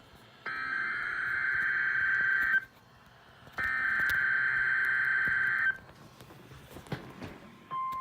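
NOAA Weather Radio Emergency Alert System alert: two SAME digital header bursts, each a buzzy data screech lasting about two seconds, about a second apart. Near the end the steady 1050 Hz Weather Radio warning alarm tone starts, which marks a warning.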